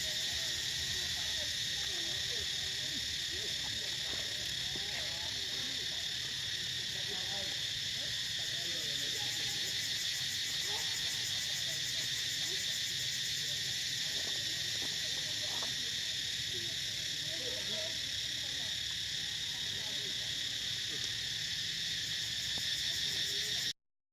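Steady forest insect chorus: a continuous high drone in several pitch bands, with faint scattered low chirps beneath. It cuts off abruptly near the end.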